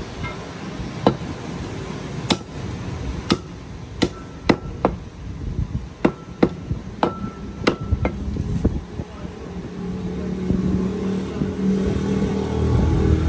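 A heavy cleaver chopping beef on a wooden tree-stump block: about a dozen sharp chops at irregular intervals, some with a brief metallic ring. From about ten seconds in, a motor vehicle's engine hum rises and grows louder under the chopping.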